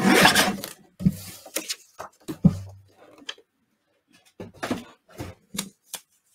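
Sliding paper trimmer blade cutting through a sheet of paper in one stroke, the loudest sound, in the first second. It is followed by a scattering of light knocks and taps as the trimmer and paper are handled on the table.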